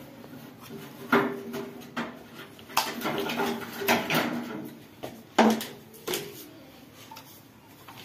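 Sharp plastic clicks and knocks as hands work the battery box of a gas instant geyser, opening its cover to get at the cells. There are five or so separate clicks, the loudest a little past the middle.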